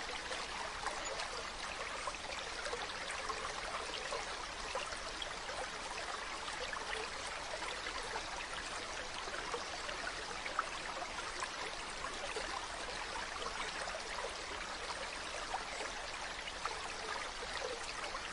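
Mountain stream running over rocks: a steady rush of water with fine splashing and trickling.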